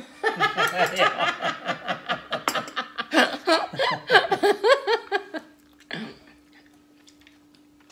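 A man laughing in a long run of quick bursts that dies away about five and a half seconds in, with a short burst of voice just after.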